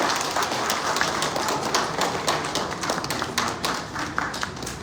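Audience applauding, with separate claps heard distinctly; the clapping thins out and fades near the end.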